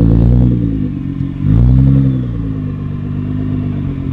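Tuned Nissan GT-R R35 SpecV's twin-turbo 3.8-litre V6 revving twice, the pitch rising and falling each time, the second rev about a second and a half in, then running at a steadier, lower pitch.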